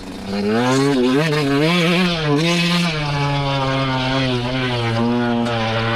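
125 cc dirt bike engine pulling along a trail, its revs rising and falling with the throttle over the first few seconds, then holding steady.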